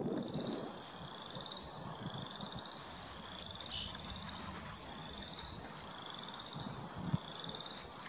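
Frogs calling: short, slightly rising trills repeating about once a second, with fainter chirps above them over a low rumble, and a single thump about seven seconds in.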